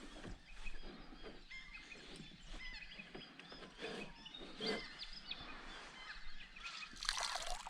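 Several birds calling: many short whistled chirps and sliding notes, overlapping throughout. A brief rushing hiss comes near the end.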